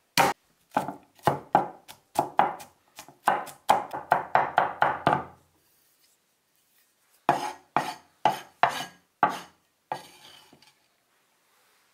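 Cleaver chopping garlic on a wooden cutting board: quick sharp strikes of the blade into the wood, about three a second. They stop after about five seconds, and after a short pause there is a second run of about six strikes.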